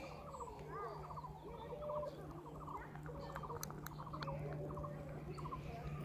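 Animal calls: short, rapid chattering trills repeat again and again, with a few gliding notes, over a steady low hum.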